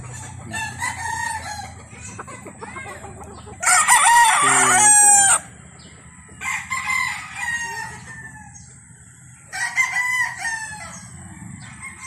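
A gamecock crows once, loud and under two seconds long, about four seconds in. Fainter crowing and clucking from other chickens comes and goes around it.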